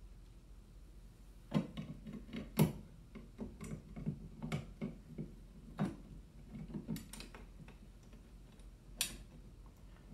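Screwdriver clicking and scraping against the screws of a solid brass switch plate as they are driven in: a string of irregular small clicks and knocks starting about a second and a half in, with one last click near the end.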